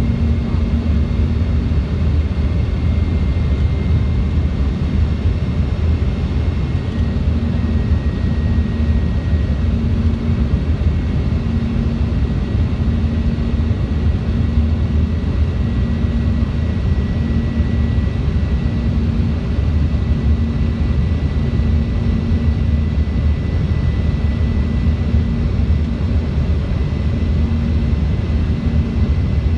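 Airliner cabin noise on final approach: the steady low rumble of the engines and rushing air, with a faint high whine running through it.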